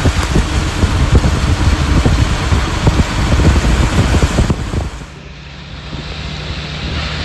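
Wind buffeting the microphone of a moving vehicle, a loud gusty rush with rain noise in it. About five seconds in it cuts to a quieter, steady low vehicle hum.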